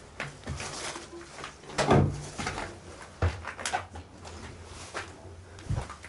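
Footsteps on a floor littered with paint chips and debris: irregular crunching, scuffing steps, one louder step about two seconds in.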